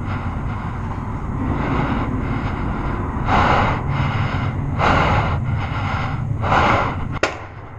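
A player's heavy breathing: three loud, rushing breaths about a second and a half apart over a steady low background rumble. A single sharp crack follows near the end.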